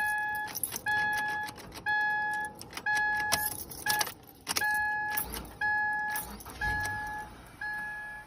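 2014 Subaru Crosstrek's warning chime beeping about once a second, each beep short and steady-pitched, with a few sharp clicks between the beeps.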